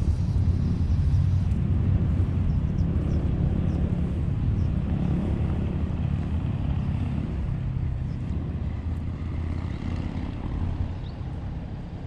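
Low, steady engine drone that slowly fades.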